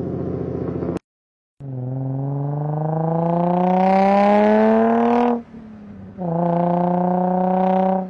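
Japanese V6 car engine running steadily, then, after a short gap about a second in, accelerating with a steadily rising pitch for about four seconds. Near five and a half seconds the pitch drops suddenly as in an upshift, and the engine pulls on at a steady pitch.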